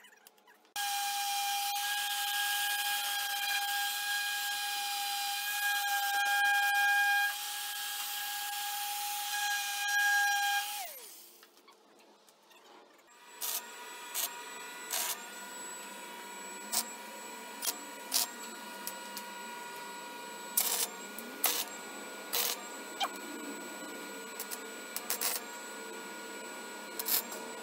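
A handheld DeWalt power tool runs with a steady high whine for about ten seconds, then winds down. After a short pause, an electric arc welder hisses and crackles steadily with frequent sharp pops as a patch is welded onto a sheet-metal car fender.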